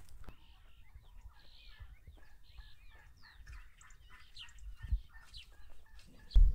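Chickens clucking and small birds chirping, a scatter of short calls and rising and falling chirps, with a low thump about five seconds in and a louder one near the end.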